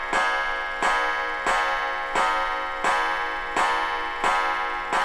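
Mechanical clock ticking steadily, about three ticks every two seconds, each tick sharp and followed by a brief metallic ring.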